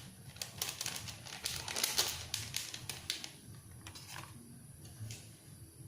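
Spoon stirring and scraping ingredients in a cooking pot: a run of quick clattering, scraping strokes for about three seconds, then a few scattered clicks.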